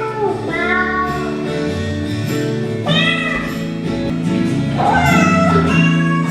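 Backing music with three drawn-out meows over it, each rising and then falling in pitch.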